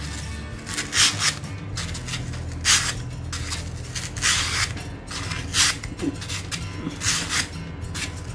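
Sandpaper wrapped round a chopstick, wet with soapy water, rasping in short one-way strokes along the cutting edge of a pet nail clipper, to sharpen the dull blade. The strokes come about every second and a half, some in quick pairs.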